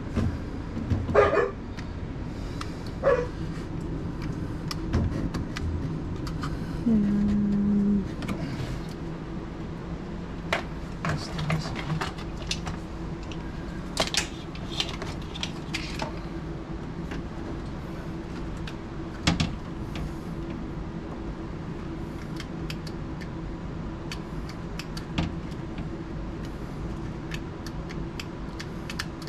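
Scattered clicks, taps and clatter of hands and tools working inside an open truck door panel. About seven seconds in, a steady electric hum lasting just over a second, from the power window motor being run.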